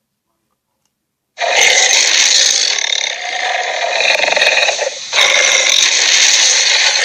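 Animated Torvosaurus sharptooth roaring: silence, then about a second and a half in a long harsh, raspy roar. It breaks off briefly near the five-second mark and a second roar follows.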